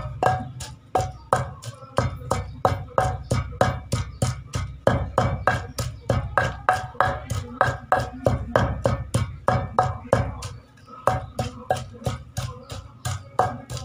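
Wooden pestle pounding onions and spices in a large wooden mortar: steady knocks about three a second, each with a short ringing note from the bowl. There is a brief pause a little past ten seconds in.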